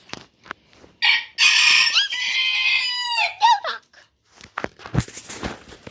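Rooster crowing once: a harsh call of about two and a half seconds that falls in pitch at the end, followed by a few faint knocks.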